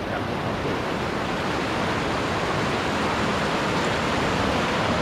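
Rocky mountain stream rushing over stones: a steady, full rush of water that grows slightly louder after a couple of seconds.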